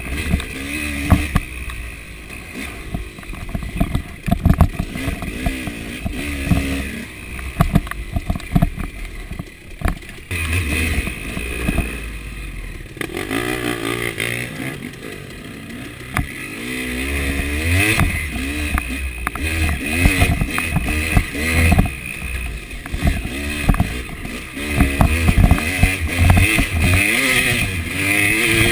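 Two-stroke KTM 300 enduro dirt bike engine revving up and down while riding a rough trail, with frequent knocks and clatter from the bike over bumps. The engine drops quieter for a few seconds around the middle, then revs hard again.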